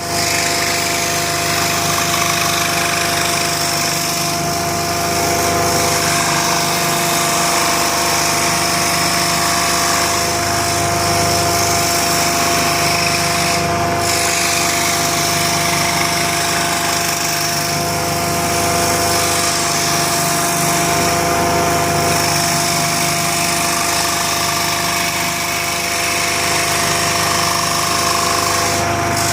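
A power tool running steadily for the whole stretch with a constant whine, its level swelling slightly now and then as it works.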